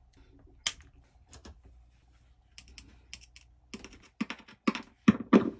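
A run of sharp plastic and metal clicks and knocks as a 9-volt battery is snapped into its clip and the preamp wiring and jack are handled, sparse at first and then coming thick and fast, with a few heavier knocks near the end.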